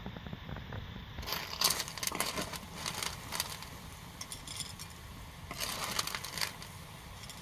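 A metal ladle scooping stir-fried snails in their shells from a steel wok, the shells clattering against the metal and onto a plate in two bursts of rattling clicks.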